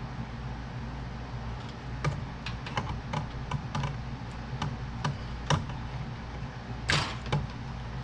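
Scattered light clicks and taps of hands working the old hood release cable free, with a louder scrape or rustle about seven seconds in, over a steady low hum.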